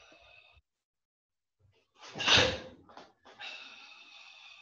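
A karateka's forceful breathing as he performs techniques: a hissing exhale fades out early, a sharp loud burst of breath comes about two seconds in, and another long hissing exhale runs near the end.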